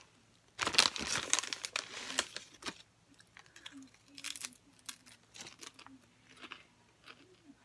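Potato-chip bag crinkling as it is handled, for about two seconds, then quieter crisp crunching of a cheddar and sour cream potato chip being bitten and chewed.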